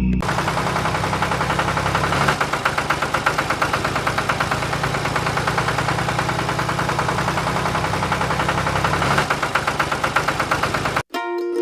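A small engine running steadily with an even chugging beat, about seven beats a second, that cuts off abruptly near the end.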